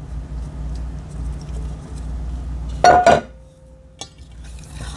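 Dry flour mixture being tipped and scraped out of an enamelware bowl into wet batter, with soft scraping and light taps, then one loud, ringing clank of enamelware about three seconds in.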